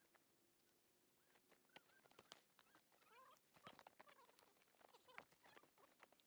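Near silence outdoors: a few faint soft clicks and some faint, short wavering chirps in the middle.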